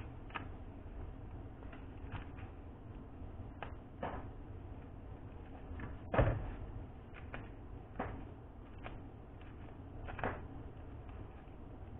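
Scattered clicks and knocks from objects being handled, the loudest about six seconds in, over a low steady hum.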